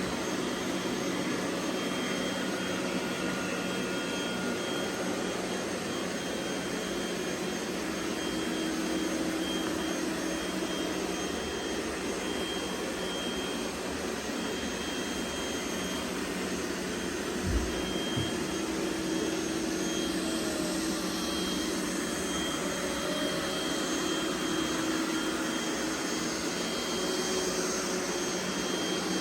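Several robot vacuum cleaners running at once, a steady whir of suction motors and brushes with a faint high whine. Two short low knocks come a little past halfway through.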